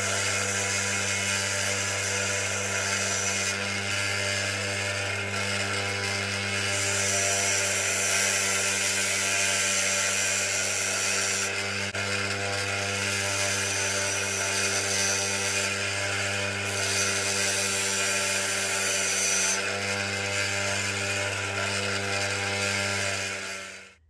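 Einhell bench grinder running with a steady motor hum while the metal shaft of a microwave turntable motor is ground on its wheel to narrow the shaft's flat side. The high rasping grind swells and eases in several long stretches as the shaft is pressed to the wheel and eased off.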